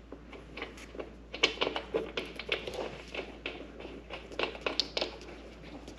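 Irregular small clicks, taps and scrapes of hands fitting quick-release seat hardware to a motorcycle.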